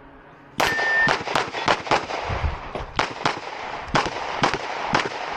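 Glock 17 9mm pistol firing a fast stage string in quick pairs, more than a dozen shots starting about half a second in.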